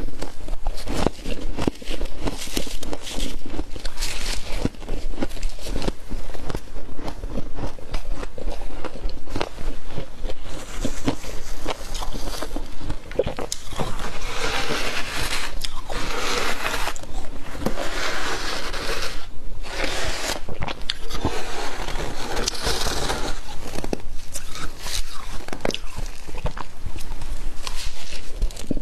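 Deep-freezer frost being bitten and scraped: a dense, continuous run of crackling crunches, with longer rasping stretches around the middle.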